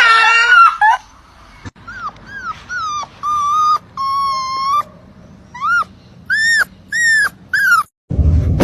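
A dog whining: a string of about ten high-pitched whimpers, mostly short rising-and-falling cries, with two longer held whines in the middle.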